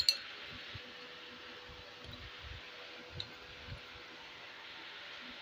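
Steady background hiss with a faint steady hum. At the very start comes a sharp, briefly ringing clink of a ceramic bowl touching down on the table, followed by two faint taps later on.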